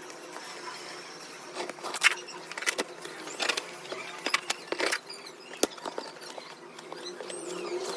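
Packaging being handled and opened by hand: irregular crinkling, rustling and sharp clicks of plastic and cardboard, loudest about two seconds in.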